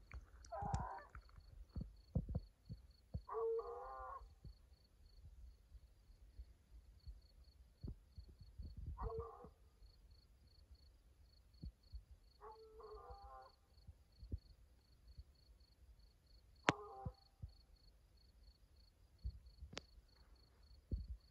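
Distant hound baying, five drawn-out bawls a few seconds apart: the dog is just about treed. Brief low thumps come and go.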